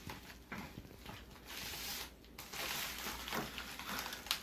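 Packaging being handled and unpacked from a subscription box: papery rustling and crinkling in short stretches, with a sharp click near the end.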